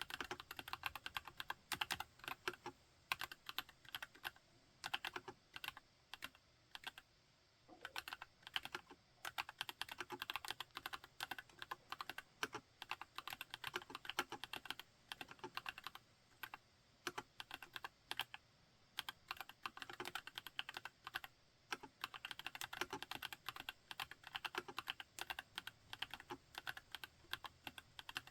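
TX EO87 r3 mechanical keyboard with JWK switches being typed on in fast runs of keystrokes, broken by a few brief pauses.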